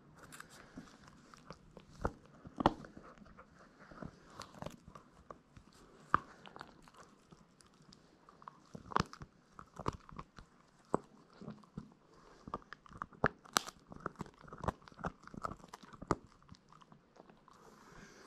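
Beagle puppy gnawing a long chew stick: irregular wet crunching and sharp cracks of her teeth on the chew, with a few louder snaps.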